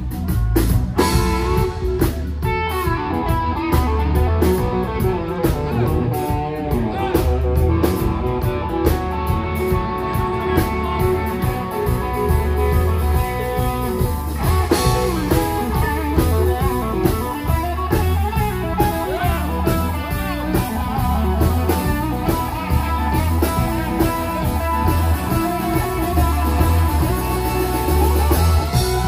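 Live blues band playing an instrumental passage, electric guitar to the fore over a regular bass pulse.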